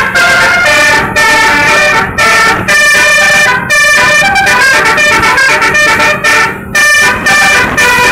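Bus telolet horn of the Basuri type playing a tune: a string of loud, bright held notes that change pitch from one to the next, with short breaks between them.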